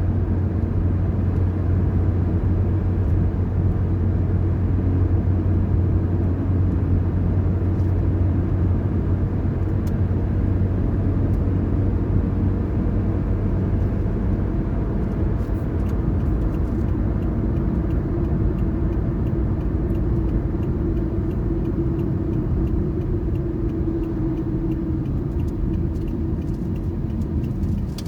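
A car driving at steady speed: continuous road and engine rumble. A low hum fades about halfway through and a higher drone takes over later.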